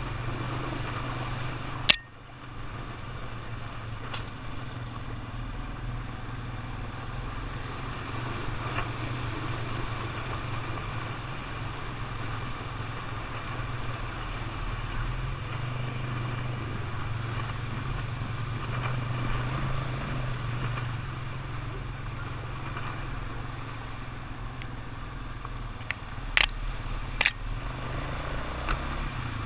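ATV engine running steadily while riding, with a sharp knock about two seconds in and two more close together near the end.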